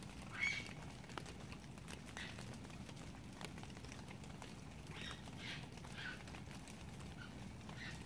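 Short, high squeals from an unidentified animal, repeated every second or so with the loudest about half a second in; the recorder wonders if it is a raccoon. Rain falls throughout.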